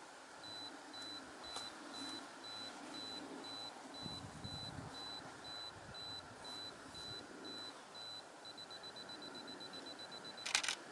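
Camera self-timer beeping about twice a second, then speeding up to rapid beeps for the last two seconds of the countdown, followed by a quick cluster of clicks as the shutter fires.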